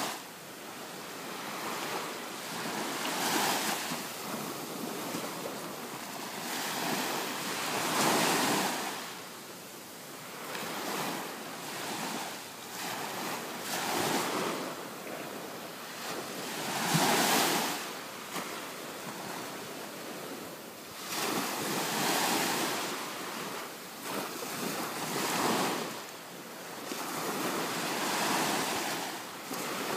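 Ocean surf washing in, swelling and fading every few seconds, with wind on the microphone.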